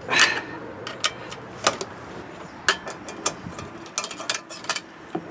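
Scattered metallic clicks and taps of a hand driver working the small fasteners of a small engine's air cleaner mount, with a quicker run of clicks about four seconds in.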